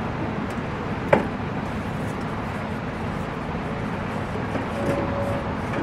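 A single sharp knock about a second in as the loose front fender panel is set against the car body, over a steady outdoor background hum; a short squeak near the end.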